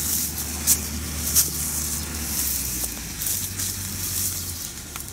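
A tractor engine running steadily, with sharp dry crackles and rustles over it.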